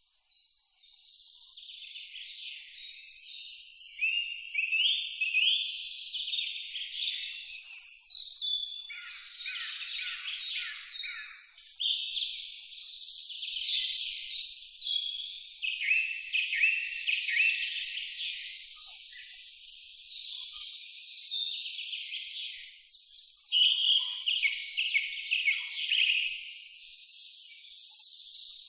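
A cricket chirping steadily in an even, high-pitched pulse about three times a second, with other chirping calls rising and falling behind it.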